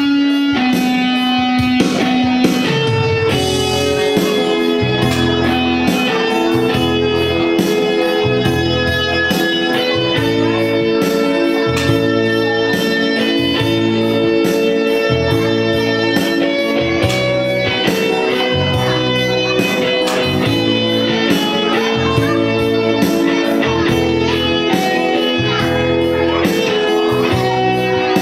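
Electronic keyboard playing an instrumental introduction, sustained melody notes over a repeating bass line and a steady beat.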